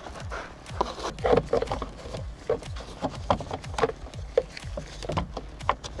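Screwdriver backing a screw out of the plastic instrument-cluster hood, with irregular clicks and light taps of the tool and screw against the trim.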